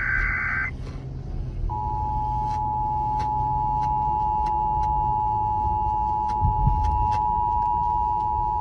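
Emergency Alert System signalling from a SAGE EAS Endec. The tail of a SAME digital header burst, a warbling data tone, cuts off less than a second in. After about a second's gap comes the steady two-tone EAS attention signal, which runs on for the rest and announces a Tornado Watch alert.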